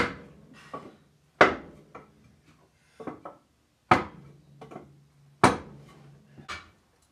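Sharp metal-on-metal knocks from work on the water manifold of a Caterpillar Sixty engine: four loud knocks with lighter taps between, each ringing briefly.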